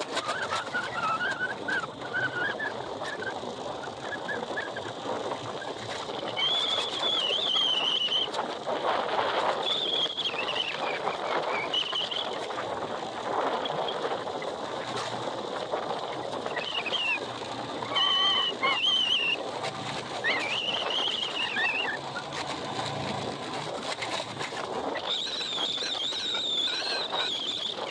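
Strong wind rushing steadily, with short, high, wavering whistles that come and go about seven times.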